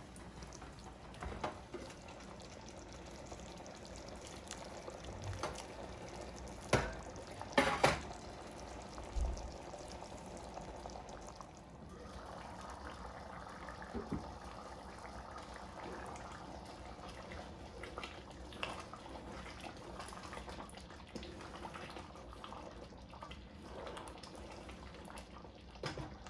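Thick red lentil stew simmering and bubbling in a pot. A few sharp knocks stand out, the loudest about a third of the way in, and a wooden spoon stirs the pot near the end.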